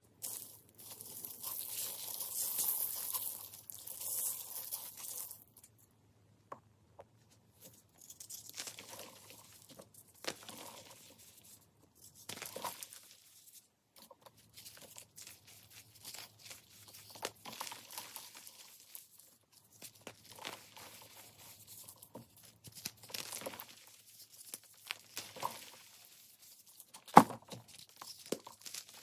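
Dyed pasted gym chalk blocks crushed and crumbled by hand: a dense, gritty powdery hiss for the first five seconds, then scattered crisp crunches and small clicks. One sharp crack a couple of seconds before the end as a block snaps.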